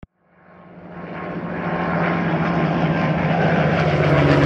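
A steady low engine drone, fading in over the first two seconds or so and then holding level.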